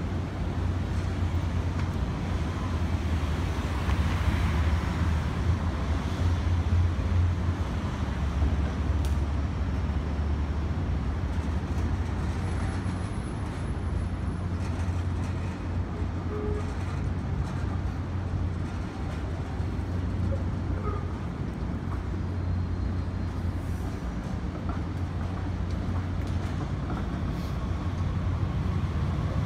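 Vintage streetcar pulling away along its rails with a low steady rumble, loudest a few seconds in and fading as it moves off, under city traffic noise.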